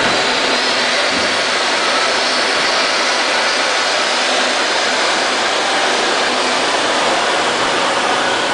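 Steady hiss of a Polin Drago deck oven's steam system injecting steam into the baking decks.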